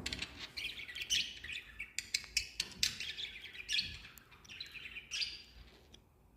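Budgies chattering, a rapid string of short chirps and clicks that dies away near the end.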